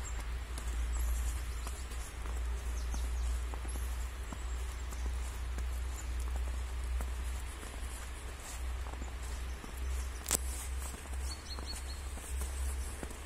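Footsteps of someone walking on a fresh snow-covered path, over a steady low rumble on the microphone. A single sharp click about ten seconds in.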